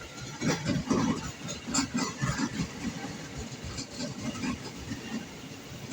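Tokyo Metro 7000-series electric commuter train running on the station tracks. A run of loud, irregular knocks and clatter comes in the first couple of seconds, then a lighter rumble with scattered knocks.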